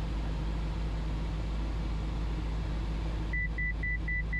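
Cessna 172's piston engine and propeller droning steadily in flight. About three seconds in, five short high electronic beeps sound, about four a second.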